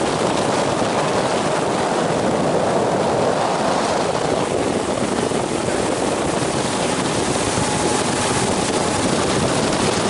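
A motorboat under way: steady engine noise mixed with the rush of water along the hull.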